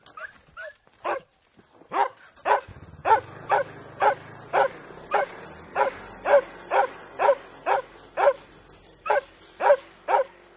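A dog barking over and over, about two loud barks a second, with a steady rhythm and no let-up.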